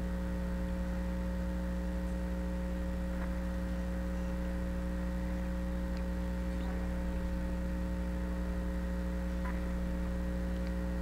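Steady electrical mains hum, with a few faint ticks.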